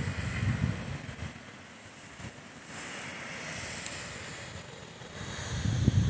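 Steady distant rush of a waterfall plunging into its pool. Gusts of wind buffet the microphone at the start and again near the end.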